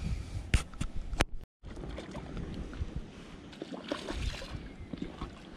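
A few light knocks and handling noise in a small aluminium boat, then a short splash in the water beside the boat about four seconds in.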